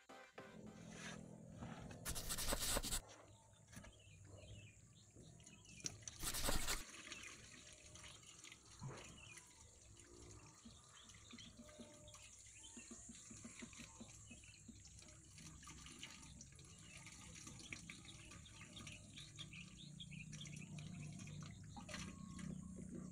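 Water pouring into a glass aquarium, running down the glass and splashing and dripping onto the rocks and gravel, faint with many small drips, growing fuller near the end as water collects on the bottom. Two brief loud noises break in during the first seven seconds.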